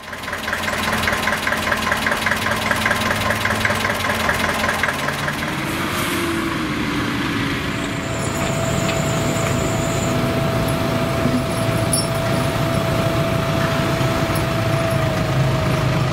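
Farm tractor diesel engines running steadily, with a steady high whine that joins about halfway through.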